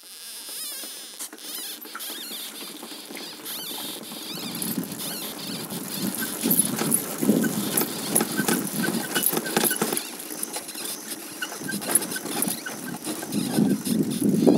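Irregular crunching and clattering of movement over a rough, stony dirt track, growing louder and busier toward the end.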